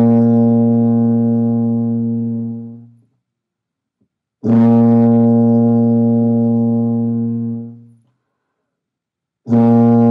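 Tuba playing a long, steady open-valve concert B flat, held about three seconds at a time. The first note fades out about three seconds in, a second begins about four and a half seconds in, and a third starts just before the end.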